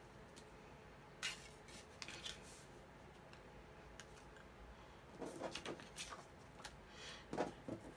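Pink cardstock being handled on a craft cutting mat: faint scattered taps and rustles of paper being slid and pressed down, busier in the second half.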